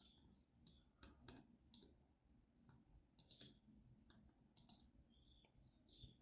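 Near silence with several faint, scattered clicks, some in quick pairs and triplets.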